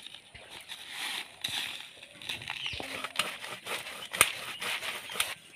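Knife scraping and cutting along the body and fins of a large katla fish: a run of irregular sharp scratches and clicks, the loudest about four seconds in.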